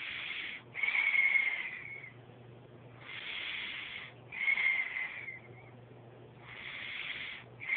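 A sleeping child's breathing with asthmatic expiratory wheezing: each airy in-breath is followed by an out-breath carrying a high, thin whistling tone that drifts slightly down in pitch. Two full wheezing out-breaths come in the first two-thirds, and a third starts right at the end.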